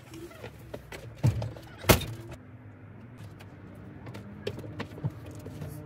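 A few knocks and thumps inside a small camping trailer as someone moves about, with one loud sharp knock about two seconds in, over a low steady hum.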